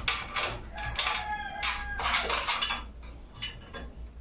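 Small metal parts being handled, clinking and rattling irregularly, with a brief squeak about a second in.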